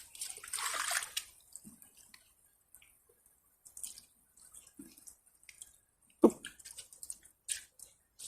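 Bare feet splashing through ankle-deep floodwater. A sloshing splash about a second long comes at the start, then scattered drips and small splashes.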